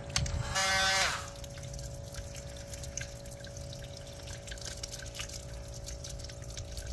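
Water dripping and trickling out of a freshly opened hole in a sailboat's keel, draining a hidden void that had filled with water. About a second in, a power tool runs briefly and winds down.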